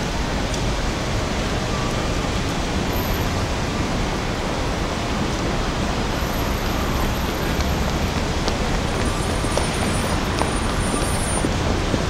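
Steady traffic noise of cars and taxis driving through a busy city intersection.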